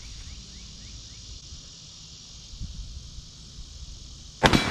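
A single loud shot from a Smith & Wesson 500 revolver firing a .500 S&W Magnum 350-grain XTP round, near the end, trailing off in echo. Before it, a steady buzz of insects.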